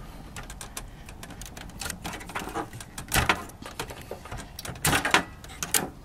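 SATA power connectors being pulled off drives in a computer case: quick plastic clicks and cable rattle against the sheet-metal chassis, with two louder clacks about three and five seconds in.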